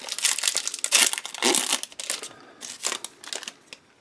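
Crinkling of a baseball card pack's wrapper as it is handled and opened. The crinkling is busiest in the first two seconds and dies away near the end.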